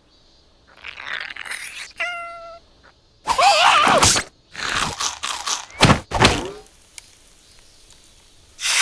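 Slapstick cartoon sound effects: several thuds and sharp hits, a short squeaky beep, and a cartoon character's wordless squealing voice.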